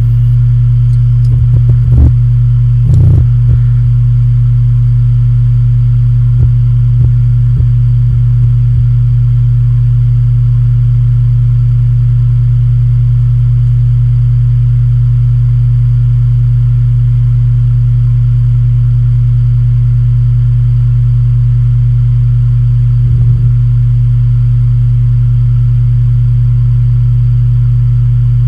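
Seagate Exos 7E10 10 TB 7,200 RPM hard drive spinning at full speed just after spin-up, with a steady hum at its spindle rate. Clusters of short head seek clicks come about 1–4 s and 6–9 s in, and a few more come near 23 s.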